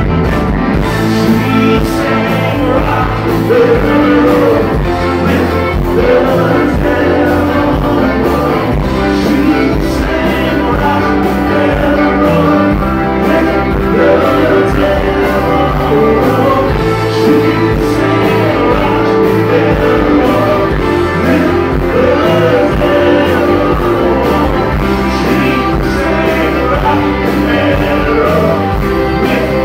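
Live rock band playing loudly, with a man singing lead over the band, heard from within the club audience.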